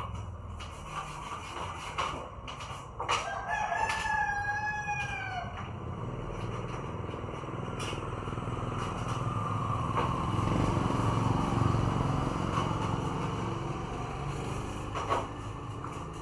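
A single long bird call that falls slightly in pitch, starting about three seconds in and lasting about two seconds, over a steady low hum and scattered clicks.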